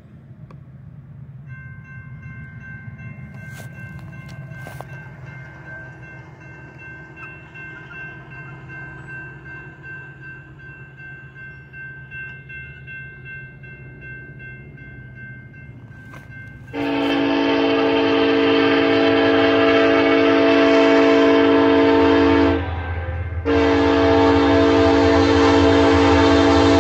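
Railroad grade-crossing bell ringing steadily over the low rumble of an approaching diesel freight train. About two-thirds of the way in, the locomotive's air horn sounds a long, loud blast, breaks off for under a second, and sounds again.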